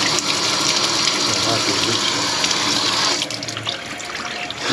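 Kitchen faucet running water into the sink in a steady rush. About three seconds in, the flow sounds thinner and quieter.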